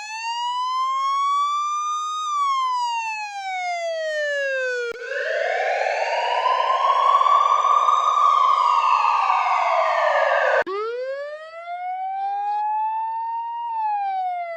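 Fire truck siren wailing in slow rise-and-fall sweeps, edited into variations: a clean wail, then a harsher, noisier version that cuts in abruptly about five seconds in, then a clean wail again after another sudden cut near eleven seconds.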